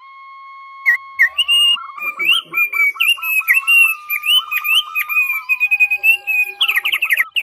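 Songbirds singing over one another: a held whistled note, then a dense mix of sliding whistles, chirps and high twittering, with a fast loud run of repeated notes near the end. It is a recording of songbird calls of the kind played to set caged birds singing.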